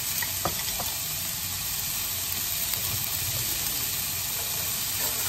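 Chopped bell pepper, onion and tomato sizzling steadily in olive oil in a stainless steel skillet on a gas burner, with a couple of faint pops about half a second in.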